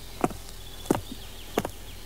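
Footsteps at an even walking pace, about three steps every two seconds, over a faint low hum.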